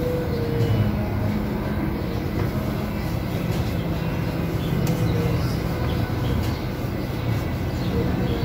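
Steady low mechanical rumble, like a running engine, with faint light clicks about five seconds in.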